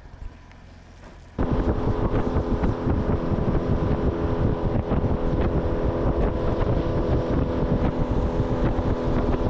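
Small boat's outboard motor running at a steady speed, with the rush of wind buffeting the microphone; it comes in suddenly about a second and a half in.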